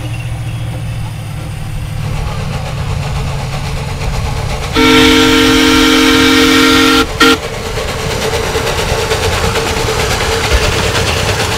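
A 16-inch gauge live steam locomotive runs along the track pulling a train of passenger cars. About five seconds in it blows its steam whistle in one long blast of about two seconds, then a short toot.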